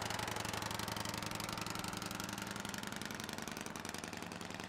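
The period engine of a replica Leyat Hélica propeller car running and driving its front propeller, a fast, even beat of firing strokes as the car rolls off.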